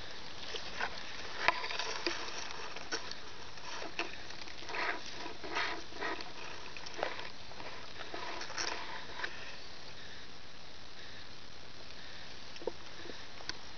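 Hands rustling through wet grass and stems close to the microphone, with irregular crackles and rustles that die down after about nine seconds, leaving a few single clicks. A steady hiss runs underneath.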